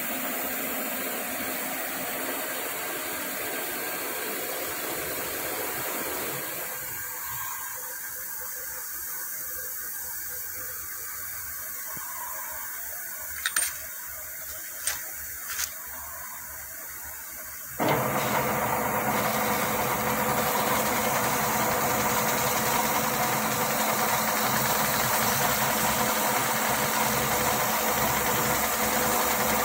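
Three sharp clicks about halfway through. Then a metal lathe is switched on: its motor and spindle start suddenly about two-thirds of the way in and run steadily, turning a hex valve-stem lock nut held in the three-jaw chuck.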